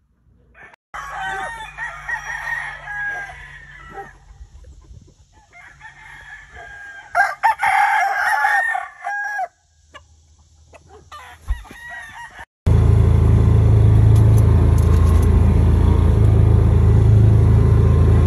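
Gamefowl roosters crowing: two long crows, then shorter calls. About twelve seconds in the sound cuts abruptly to a loud, steady low rumble.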